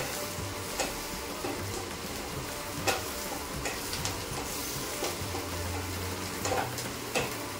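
Chopped green chillies, ginger and garlic sizzling in mustard oil and butter in a pan while being stirred, with a spatula clicking against the pan now and then, loudest about three seconds in.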